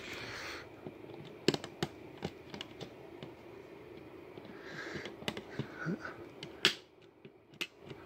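Scattered sharp clicks and rustling as a sump pump's power cord and plug are handled and plugged into an outlet.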